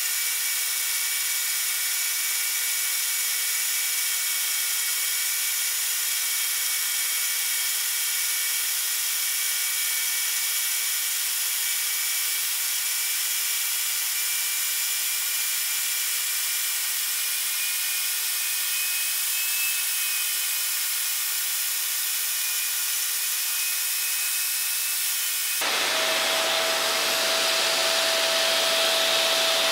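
Electric grinder's abrasive wheel grinding the steel wheel of a roller mill to true it: a steady high whine over a grinding hiss. Near the end it gives way abruptly to a louder steady whirr.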